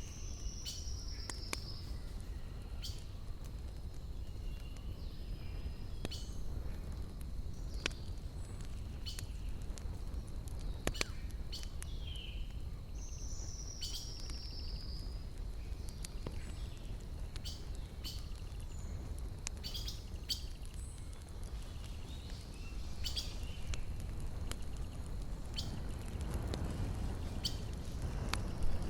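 Wood fire crackling, with sharp pops and snaps at irregular intervals over a steady low rumble. A bird twice gives a short falling trill, about a second in and again near the middle.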